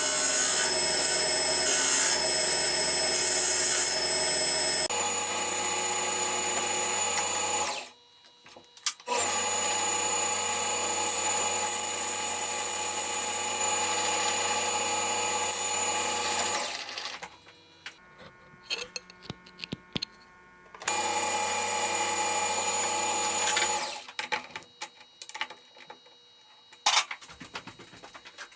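AC TIG welding arc on aluminum buzzing steadily in three long beads, the first about eight seconds, the second about seven and the last about three. Light clicks and knocks fill the pauses between them.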